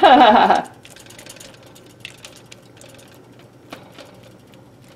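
A woman's voice trails off in the first half-second, then scattered faint taps and crinkles as a silicone basting brush dabs sauce onto eggplant on aluminium foil.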